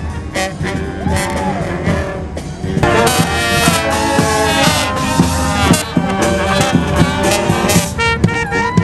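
Marching brass band playing in the street, horns carrying the tune over driving drums, getting louder about three seconds in.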